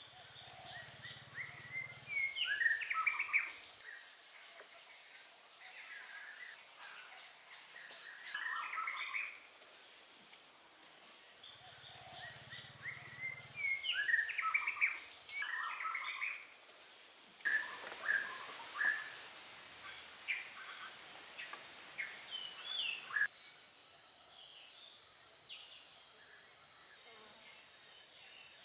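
Forest ambience: insects keep up a steady high-pitched drone while birds chirp and call over it. The drone drops out and comes back abruptly several times, and a few light clicks sound in the second half.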